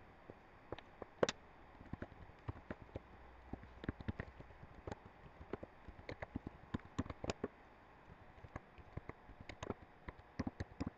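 Typing on a computer keyboard: irregular key clicks, several a second, with a short pause about three-quarters of the way through.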